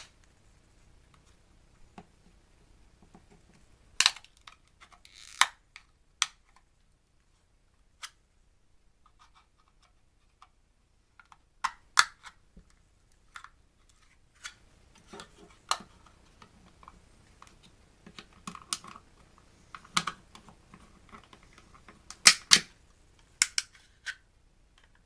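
Hand tools clicking, snapping and knocking against the plastic casing and parts of a small electronic device as it is pried apart. The sharp clicks come in irregular clusters, with a quiet pause of several seconds partway through.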